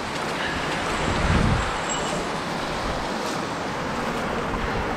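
Small mountain stream running over rocks and a little cascade: a steady rush of water, with a brief low rumble about a second and a half in.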